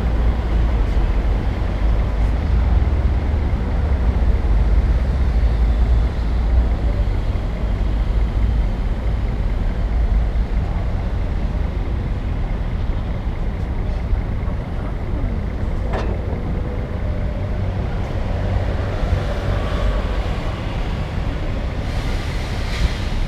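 City street traffic: a steady rumble of passing motor vehicles, with a heavy low engine drone early on that eases off, and a sharp click about two-thirds of the way through.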